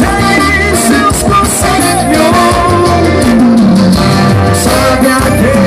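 Loud forró music playing: a full band with bass, a beat and melodic lead lines.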